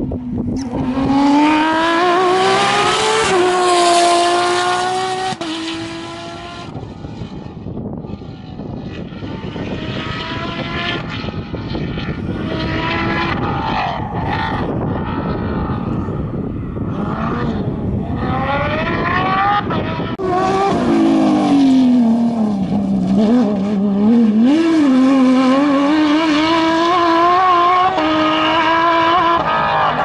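Porsche 911 (997) GT3 rally cars' flat-six engines at full throttle, several cars in turn. The pitch climbs hard through the gears and drops back at each upshift and on lifting off.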